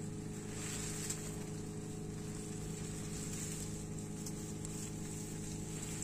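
A steady low hum made of several held tones, with a faint steady high whine above it.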